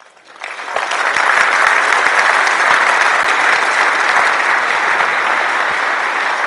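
Audience applauding: the clapping starts about half a second in, swells to full within a second and then keeps up steadily.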